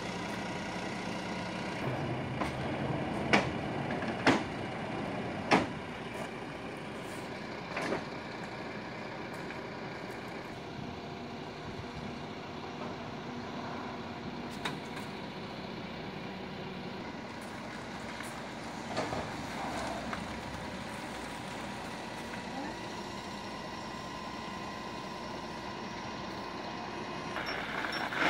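A delivery truck and its truck-mounted forklift running steadily, with four sharp metallic clanks in the first eight seconds as the forklift is worked.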